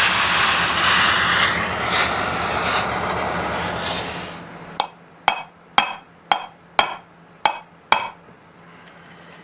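A butane torch flame hisses steadily as it heats the crankcase around a bearing, then stops about four and a half seconds in. About seven sharp taps follow, roughly two a second, striking the heated crankcase to knock the bearing loose.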